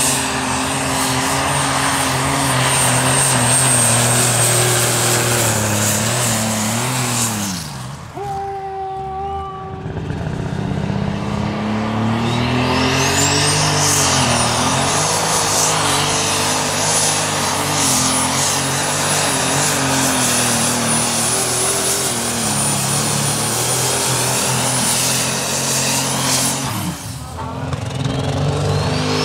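Engines of modified pulling tractors running flat out under load as they drag a weight-transfer sled, one pull after another, with a high whine that climbs and then holds steady. Brief lulls come about eight seconds in and near the end.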